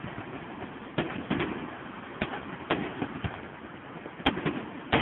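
Fireworks going off: a string of sharp bangs at irregular intervals over a steady background din.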